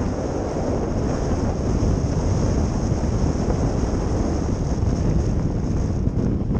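Steady low rumble of wind buffeting the microphone, with an even rushing hiss and no breaks.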